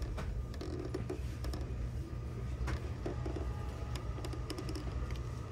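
Electric reclining train seat being adjusted from its armrest button: scattered clicks and creaks from the seat mechanism over a steady low hum of the train car.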